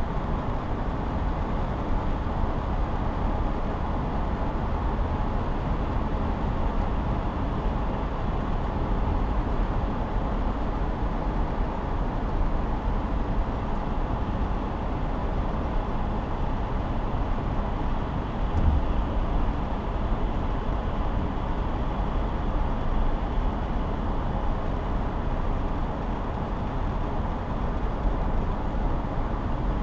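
Steady road and engine noise of a car cruising at highway speed, heard from inside the cabin. One brief low thump comes about two-thirds of the way through.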